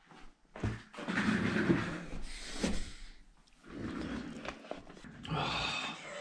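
Handling noise from a handheld camera being moved about: uneven rustling with a few knocks and clicks, and a thump about two-thirds of a second in.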